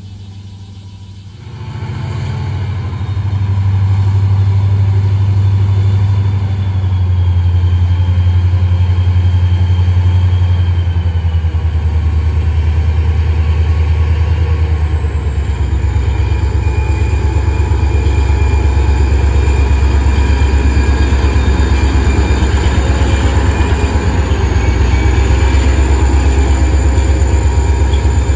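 Diesel-electric freight locomotives running close by. The low engine drone builds sharply about two seconds in and then holds loud and steady, with high whines sliding slowly down in pitch.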